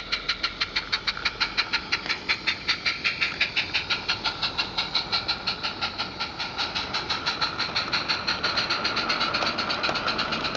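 Garden-scale live-steam locomotive working a train of bogie wagons, its exhaust chuffing fast and evenly at about four to five beats a second, growing fainter in the second half as it moves away.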